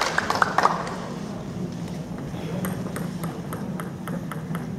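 Scattered sharp clicks of celluloid-type table tennis balls striking tables and bats from the many tables around a large sports hall, with some high ringing, over the hall's steady low hum. A dense patter of clapping dies away within the first second.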